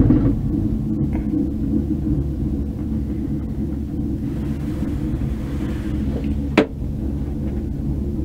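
Steady low rumble inside a moving gondola cabin as it rides the haul cable, with a single brief sharp sound about six and a half seconds in.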